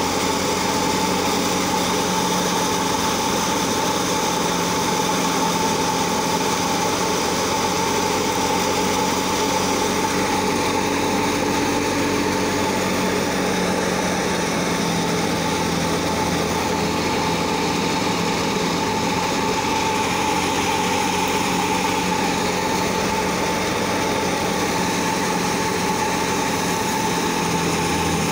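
Wheat thresher running steadily while threshing, a constant mechanical drone with a steady high whine from its spinning drum and fan.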